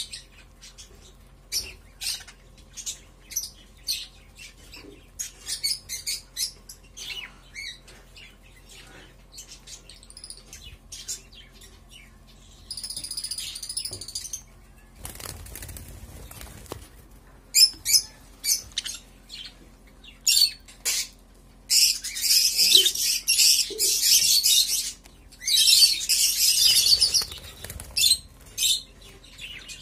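A group of budgerigars chirping in many short, high calls, with a burst of wing flapping about halfway through and dense, continuous chattering near the end.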